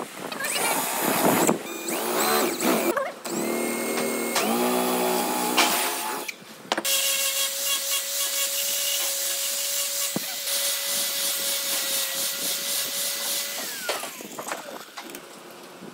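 Electric drill boring into wood in short bursts, its motor whine rising and falling with each squeeze of the trigger. After a cut, a power-tool motor runs steadily for about seven seconds and then winds down.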